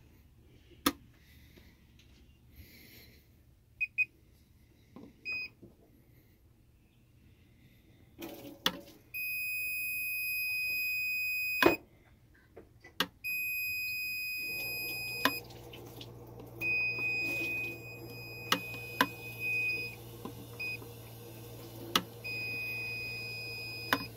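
Wall toggle switches clicking as they are flipped, while a non-contact voltage tester pen pushed into the switched half of a duplex receptacle sounds a steady high beep whenever that outlet is live. The beeps, one to three seconds each, start and stop with the switch clicks, showing the switches turning the half-hot outlet on and off; a low hum comes in about halfway.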